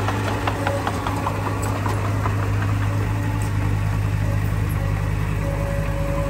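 Diesel engine of a Komatsu D20P bulldozer running steadily with a deep, even drone, with light metallic clicks in the first couple of seconds. A higher steady whine joins near the end.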